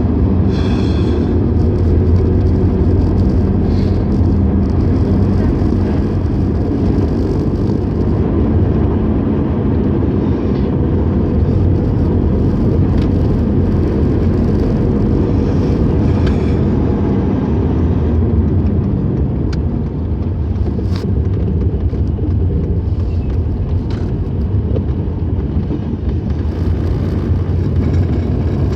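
Mercedes-Benz 190E under way, heard from inside the cabin: steady engine and road noise at speed, with the engine note falling about two-thirds of the way through.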